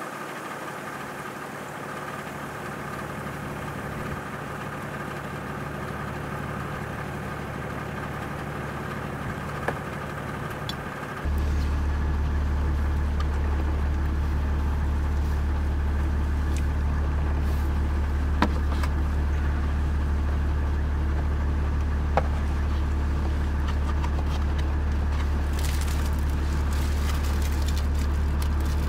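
Nissan Safari Y60 engine idling steadily, becoming a louder, deeper hum about a third of the way in. A few light ticks, and plastic wrapper crinkling near the end.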